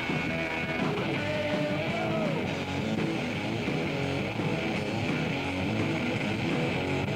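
Rock music led by strummed guitar.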